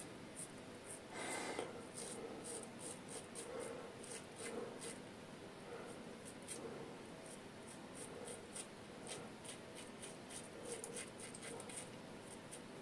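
Yaqi Excalibur razor with a Feather Pro Guard blade scraping through stubble on the upper lip in short, quick strokes, a few a second, faint. The blade has been used about twelve times.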